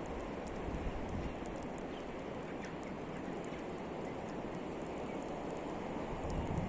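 Barnacles crackling: many faint, scattered clicks and pops over a steady rushing background.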